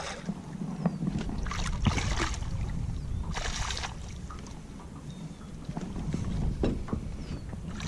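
Low rumble of wind on the microphone aboard a small fishing boat, with scattered knocks and two short rushing noises about a second and a half and three and a half seconds in.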